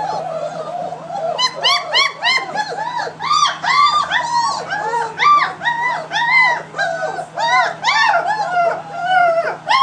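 Three-week-old German Shepherd puppies whining and crying: a rapid run of short, high cries that each rise and fall in pitch, several puppies overlapping, growing denser and louder after about a second.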